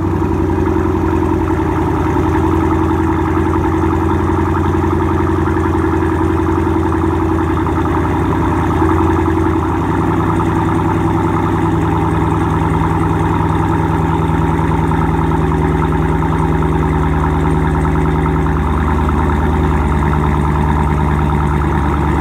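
2017 Jeep Grand Cherokee SRT's 6.4-litre HEMI V8 idling steadily and loudly through a straight-piped exhaust: stock headers and cats, X-pipe in place of the middle muffler, rear muffler deleted to 5-inch dual tips. The idle note shifts slightly about ten seconds in.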